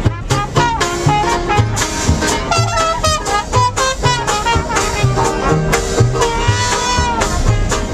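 Swing-style jazz music with brass horns over a steady, evenly paced bass line; a horn holds one long wavering note about six seconds in.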